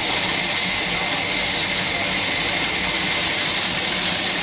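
Steady roar of high-flame gas burners under karahi pans, with the chicken and liquid boiling hard in the pans.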